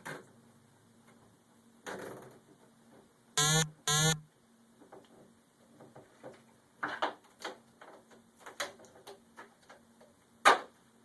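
A plastic zip tie pulled tight twice in quick succession, each pull a short rapid ratcheting zip a little over three seconds in, amid scattered clicks and knocks from handling, with one sharp click near the end.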